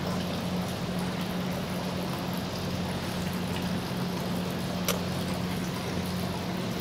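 Steady low hum with an even hiss and a single faint click about five seconds in.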